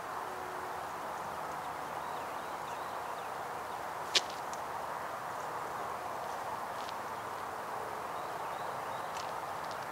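Steady outdoor background noise with faint, brief high chirps scattered through it, and one sharp click about four seconds in.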